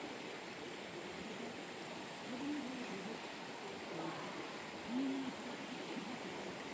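Mountain valley stream rushing steadily, with two brief, low, arched calls like hoots about two and a half and five seconds in.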